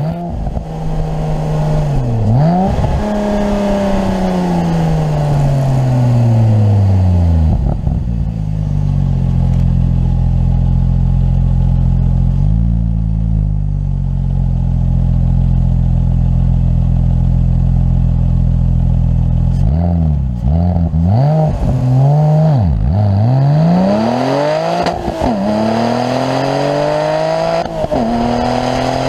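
Porsche 996 Turbo's twin-turbocharged flat-six running under way. Its pitch falls over the first several seconds, holds steady for about ten seconds, then swings up and down several times in quick succession near the end as the car is driven through the revs.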